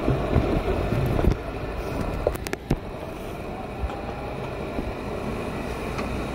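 Wind rumbling on the microphone over a steady low outdoor background, with a few sharp knocks in the first three seconds.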